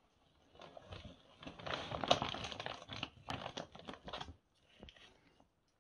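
A large clear plastic bag of popcorn crinkling and rustling as it is handled, for about four seconds, followed by a few faint taps.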